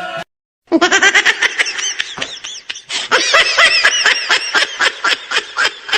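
High-pitched, rapid laughing in quick repeated bursts of rising and falling pitch, starting after a brief silence about half a second in.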